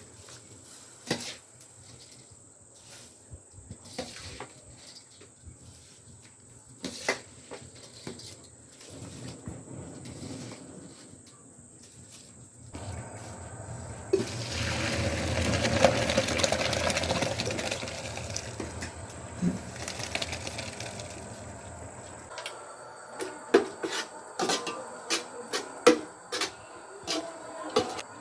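Cooking pots and utensils clinking and knocking, then about halfway through liquid pouring into a pot for nearly ten seconds, followed by a quick run of clinks and knocks.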